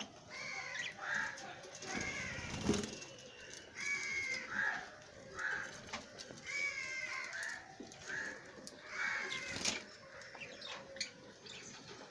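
Pet lovebirds calling, repeated harsh, screechy chirps about one a second, with a couple of sharp knocks among them.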